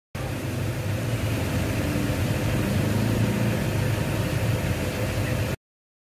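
Steady low rumble of road traffic with a hiss above it, cutting off suddenly about five and a half seconds in.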